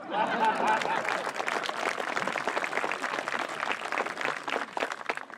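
Outdoor audience applauding, a dense patter of many hands clapping that stops abruptly near the end, with a few voices mixed in at the start.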